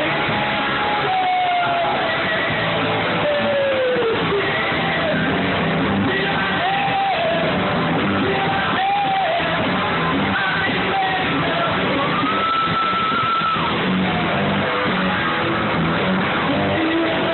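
Live rock band playing loudly: a lead singer on microphone over electric guitar, bass guitar and drums.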